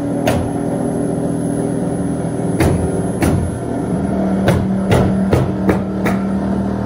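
Nails being driven into wall sheathing: a string of sharp knocks, sparse at first and then several a second in the second half, over a steady machine hum.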